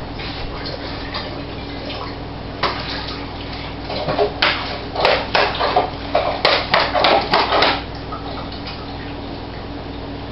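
Plastic bottle of seltzer water shaken hard, giving a run of a dozen or so sharp sloshing knocks at about two a second, starting a little over two seconds in and stopping about five seconds later.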